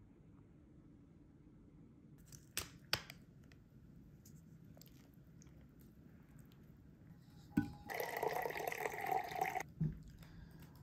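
Quiet handling sounds of a salad being dressed in a paper pulp takeaway bowl: a couple of sharp clicks a few seconds in, then, as the dressing is poured over the leaves, a louder crackly rustle lasting about a second and a half that ends in a soft thump.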